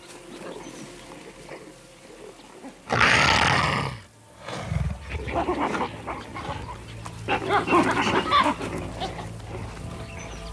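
Leopard snarling and growling while a troop of baboons mobs it. A loud, harsh snarl comes about three seconds in, followed by more growls and calls.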